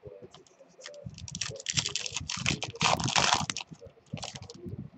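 Foil wrapper of a baseball card pack being torn open and crinkled by hand: a crackly rustle that builds about a second in and is loudest past the middle, with a few light taps of card handling around it.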